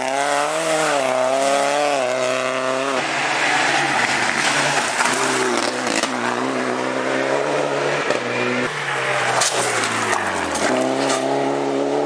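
Rally car engines at full throttle, revving up and dropping back at each gear change as the cars drive past one after another.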